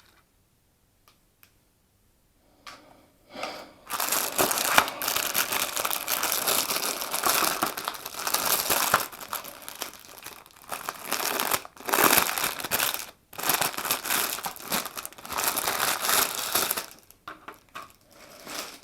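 Packaging being crumpled and crinkled by hand as the router is unwrapped, with a few rustles about three seconds in and then nearly continuous crinkling broken by short pauses.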